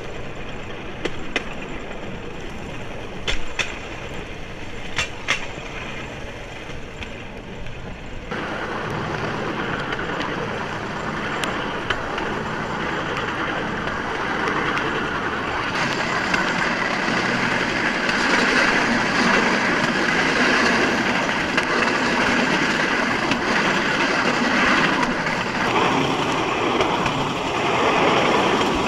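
A bamboo train (norry) running along a rough rail track: a steady rattling rush with a few sharp knocks in the first several seconds. It gets abruptly louder about eight seconds in and louder again around sixteen seconds.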